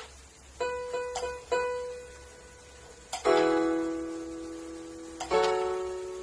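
Casio CPS7 76-key digital keyboard playing a demo voice: a few short notes, then a chord about three seconds in that rings and slowly fades, and another chord a little after five seconds.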